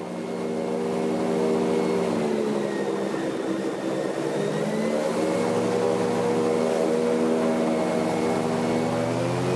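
Airboat's engine and propeller running at speed, a loud steady drone whose pitch sags a little a few seconds in and climbs again near the end as the throttle changes.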